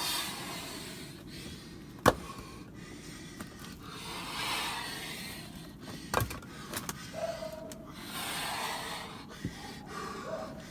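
Ash firewood being split by hand: two sharp strikes about four seconds apart, with heavy breathing between the blows.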